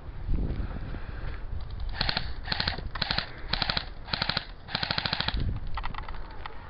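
Airsoft guns firing on full auto in short bursts of rapid clicking, about six bursts from two seconds in to past five seconds, then a few fainter bursts, over a low rumble of handling and wind.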